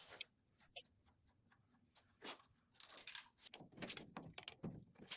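Near silence, then a run of faint, irregular clicks and taps from about two seconds in.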